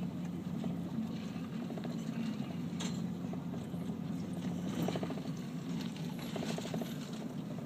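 Car cabin noise with the windows up: engine and tyres running steadily at low speed, with a few brief rattles.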